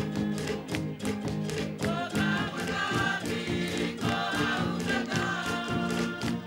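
Group of voices singing a Wallisian dance song together, with a steady struck beat keeping time underneath, accompanying a solo dance.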